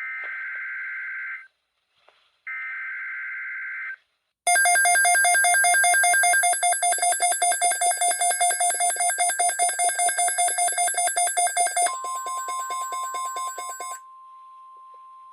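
Emergency Alert System alert tones: two bursts of screeching digital header data, then a loud buzzing alert tone pulsing several times a second. Near the end the pulsing stops and a steady single high tone, the NOAA Weather Radio warning alarm tone, carries on alone.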